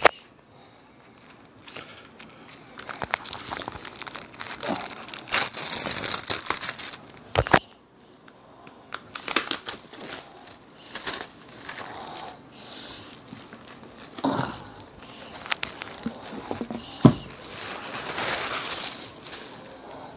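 Plastic shrink wrap crinkling and tearing in irregular bursts as it is pulled off a hardcover book, with a couple of sharp knocks from the book being handled.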